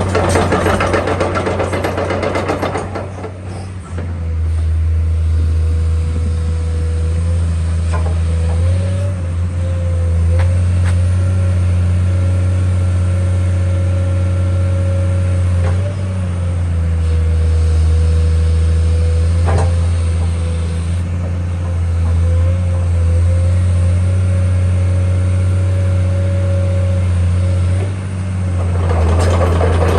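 Komatsu PC210-10M0 excavator's diesel engine running steadily with a low hum and a steady, slightly wavering whine above it, and a few sharp clicks. It is louder and rougher for the first few seconds and again near the end.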